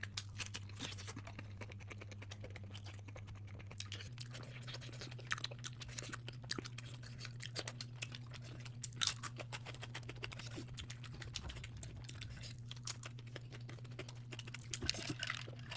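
Close-miked mukbang eating sounds: chewing with many small irregular wet clicks and light crunches, over a faint steady low hum.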